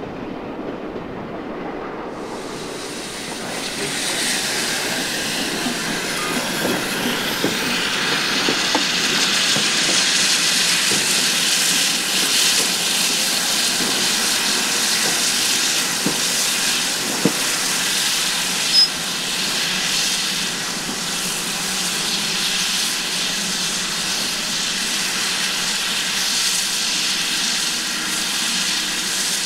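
Steam locomotive hauling a train past: a loud hiss of steam and exhaust builds from about two seconds in, over the rumble of the train on the rails.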